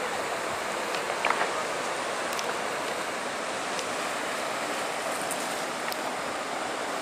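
Steady rush of river water flowing over rocks, with a few brief splashes and clicks as a hooked Atlantic salmon thrashes at the surface beside the landing net.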